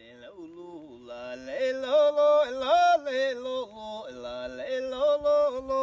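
A single voice singing a Sámi joik, holding long notes and sliding between them.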